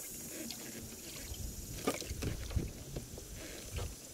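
Knocks and low thumps of someone handling things aboard a bass boat. Two sharper knocks come about two and two and a half seconds in.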